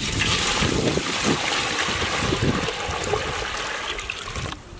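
Water poured in a steady stream from a plastic bucket into a large aluminium cooking pot, splashing and frothing as the pot fills; the pouring stops just before the end.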